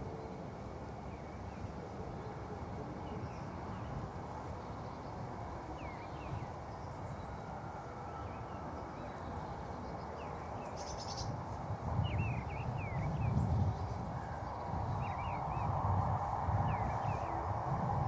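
Small birds chirping now and then over steady outdoor noise, with wind gusting on the microphone in the second half.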